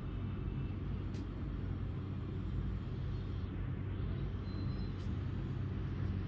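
Steady low background rumble, with two short clicks, one about a second in and one about five seconds in.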